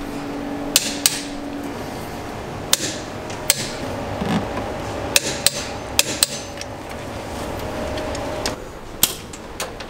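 Click-type torque wrench clicking as the wheel bolts of a BMW E28 M535i are tightened to torque: about ten sharp clicks, spaced irregularly, some in quick pairs.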